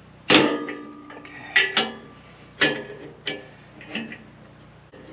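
Sharp metal clanks with a short ring, steel on steel, as a wrench is worked on the clamp bolts of bolt-on forklift forks on a tractor loader bucket. About six clanks at uneven spacing, the first and loudest just after the start.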